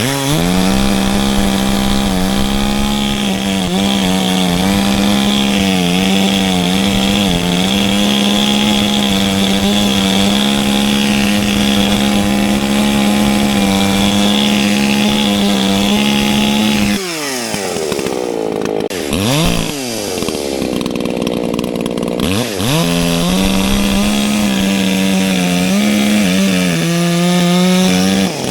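Echo CS-620PW two-stroke chainsaw, newly modified, running at full throttle under load as it cuts into a dead tree, its pitch holding steady. About 17 s in it drops off the throttle and the pitch falls and slides up and down for several seconds, then it goes back to a steady full-throttle cut.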